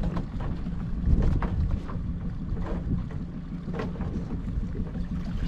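Small boat's outboard motor running low and steady, with wind buffeting the microphone and a few light knocks.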